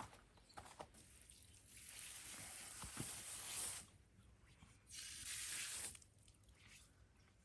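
Two spells of steady hissing noise, the first about two seconds long, the second about one second, with a few faint clicks near the start.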